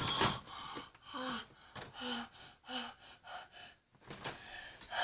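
A person breathing hard in a string of short, broken gasps, as if out of breath from carrying something heavy.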